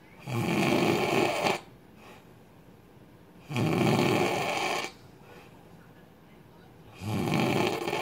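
A man snoring loud, three long snores each lasting just over a second and coming about every three and a half seconds.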